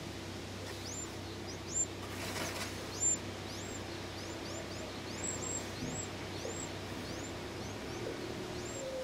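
Wren nestling begging: thin, high cheeps, each sweeping upward in pitch, repeated irregularly about twice a second as an adult wren feeds it at the nest. Two soft knocks and a brief rustle, about two and three seconds in, come from the adult moving against the nest box.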